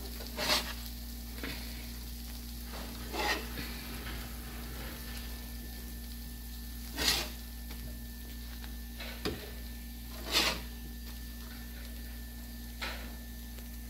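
Molletes sizzling on a comal, with a metal spatula scraping against the griddle a handful of times as the bread is moved and turned.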